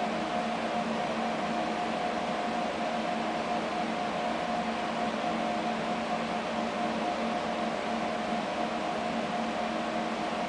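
Steady mechanical hum: an even hiss with a few constant tones, the highest of them the strongest, with no change or impacts.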